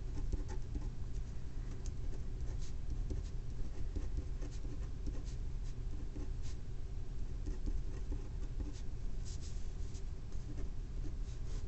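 A pen writing on paper: quick, irregular scratches and small taps as figures and symbols are written out, over a steady low hum.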